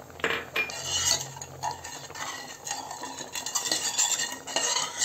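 Steel ladle stirring thickened milk and sugar in a saucepan, scraping and clinking against the pan in quick, irregular strokes.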